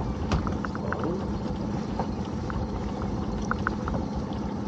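Water trickling and dripping with many small irregular clicks and knocks from a lobster pot being handled, over a steady low hum.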